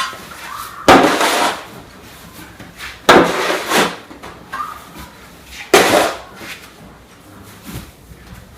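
Snow shovel strokes: the blade scrapes and scoops into deep snow three times, about one stroke every two and a half seconds.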